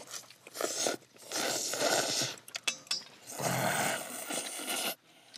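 A person slurping a big mouthful of cold buckwheat noodles: several long, noisy slurps, the last one the longest.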